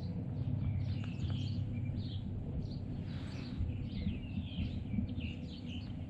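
Small birds chirping and calling over and over in dry scrub, many short high chirps overlapping, over a steady low rumble.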